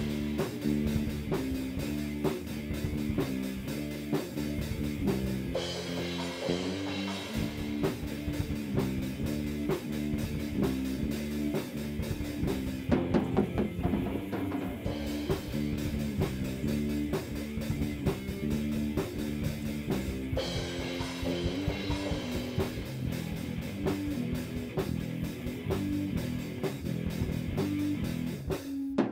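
Background rock music with drums and guitar.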